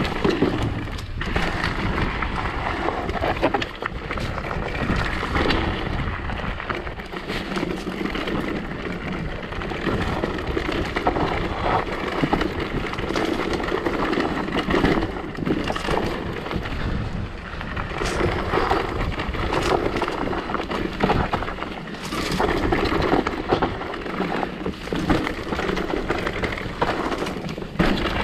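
Mountain e-bike ridden along a rough trail: a steady rush of wind on the microphone with continual rattling and knocking from the tyres and frame over the ground.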